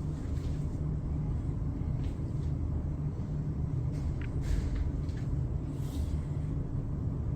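A steady low rumble of background noise, with a few faint short sounds about four and a half and six seconds in.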